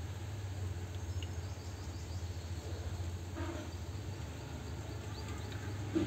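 Honey bee colony buzzing as a steady low hum.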